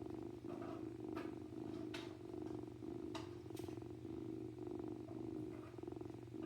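Kitten purring steadily and close up, the purr swelling and dipping a little under once a second, with a few faint clicks.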